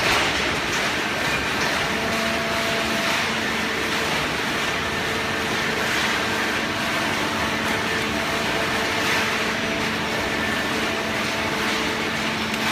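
Hydraulic carton baler running: a steady machine noise with a constant hum, which steps up in loudness at the very start and then holds even.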